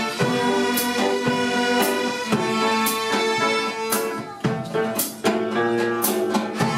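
A children's string orchestra playing a piece: held bowed notes, with sharp accented attacks about once a second.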